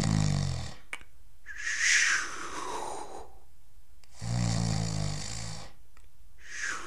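A man's put-on snoring, twice: each time a low rattling snore on the in-breath, then a breathy out-breath that falls in pitch. He is faking sleep.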